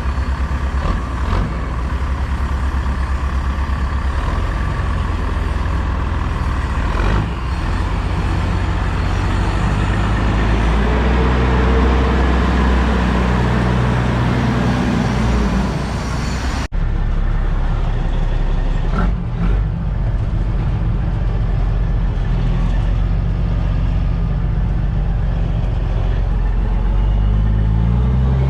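Heavy diesel engine running under load, its pitch climbing and falling as it revs through the gears. The sound changes abruptly about two-thirds of the way in.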